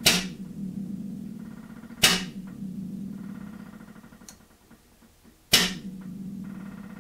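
Three sharp metallic bangs on a hydraulic torque-testing rig holding a steel combination wrench, the first about a tenth of a second in, the next about two seconds later, the last about three and a half seconds after that. Each bang is followed by a low metallic ring that fades over a couple of seconds.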